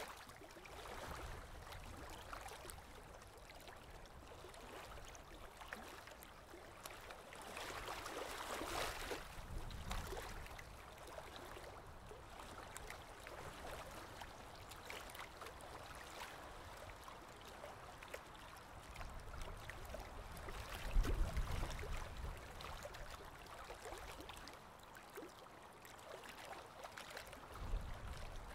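Small Lake Erie waves lapping on the shore, a soft steady wash of water, with a low rumble about two-thirds of the way through.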